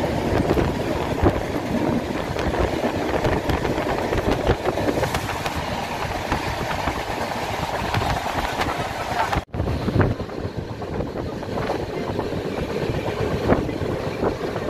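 Running noise of a moving passenger train heard from a carriage window: a steady rumble of wheels on rails with many small rattles and knocks. The sound drops out for a moment about two-thirds of the way through, then the same running noise carries on.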